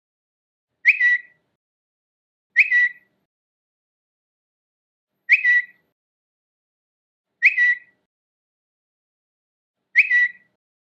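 Twitter notification sound, a short high electronic chirp with a quick upward flick, played five times at uneven gaps of two to three seconds, with silence between.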